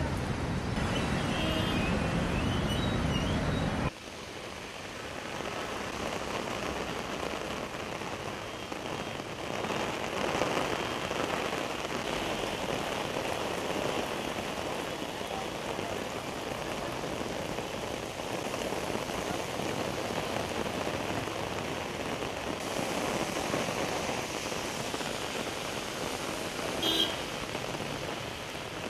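Heavy rain falling on a wet road, a steady even hiss. For the first four seconds a louder, deeper rush of water and traffic noise, which cuts off abruptly; a short pitched sound near the end.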